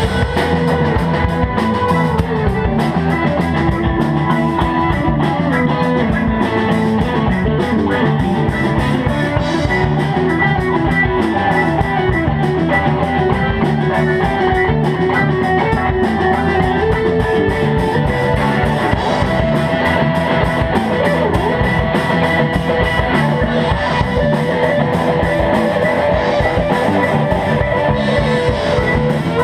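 Live rock band playing an instrumental break without singing: electric guitars over bass guitar and drum kit.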